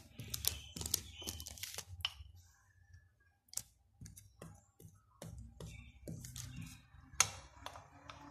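Light, irregular clicks and scrapes of a metal spoon spreading chocolate paste, with one sharper click about seven seconds in.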